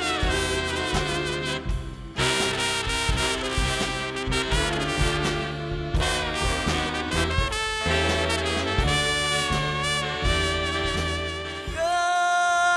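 Instrumental swing music from a musical's pit orchestra, with brass (trumpet and trombone) over a walking bass; a long held note near the end.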